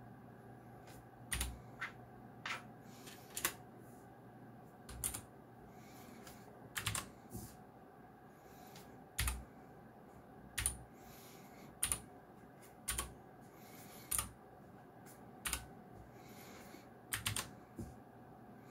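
Keys on a Geekstar × Deck Hassium Pro 108 mechanical keyboard with clicky blue switches, pressed one at a time. There are about fifteen separate sharp clicks at an uneven pace of roughly one a second, with a quick pair of presses near the end.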